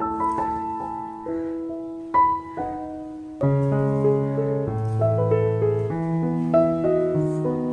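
Background piano music: a calm melody of held notes, with lower bass notes joining about three and a half seconds in.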